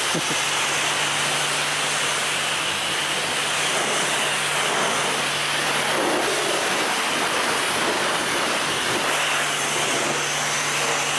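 High-pressure rinse spray from a coin-operated car wash lance, a steady hiss of water jetting onto the car. A low steady hum sits beneath it and drops out for a few seconds after the middle.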